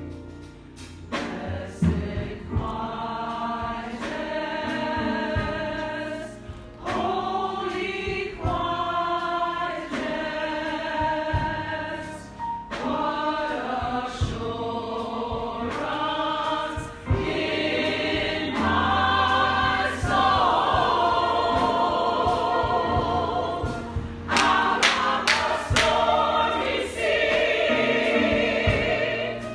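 Church congregation and choir singing a gospel song together, with a bass line and a steady beat under the voices.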